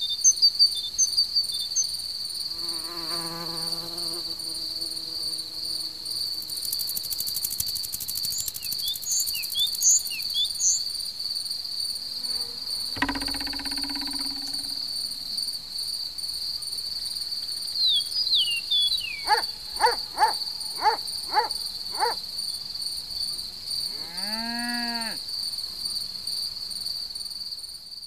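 A steady, high cricket trill runs throughout. Other short calls sound over it: a held call a few seconds in, quick chirps and a clicking rattle around eight to ten seconds, a thud near the middle, a run of five quick falling whistles past the two-thirds mark, and an arching call shortly after.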